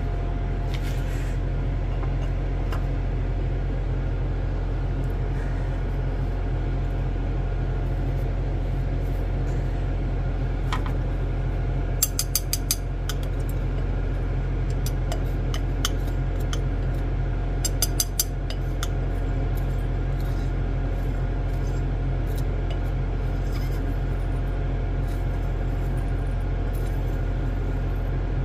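A steady low machine hum, with two short clusters of sharp clinks about twelve and eighteen seconds in.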